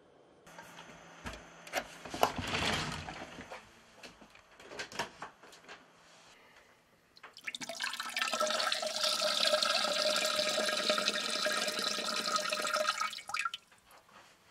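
A toilet flushing: scattered splashes and clicks, then about six seconds of rushing water with a steady whistling tone that cuts off suddenly near the end.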